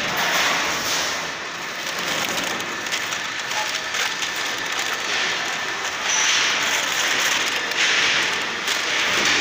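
Sheets of newspaper rustling and crinkling as they are handled and pressed onto a bus panel for masking, louder in spells about six and eight seconds in.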